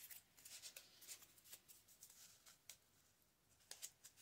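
Faint rustling and a scattering of soft, crisp crinkles from folded paper strips being handled and slid through one another.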